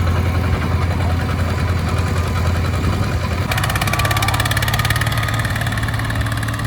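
Heavy farm-machinery diesel engine running steadily. About halfway in, a fast, even rattle and a faint high whine join the engine sound.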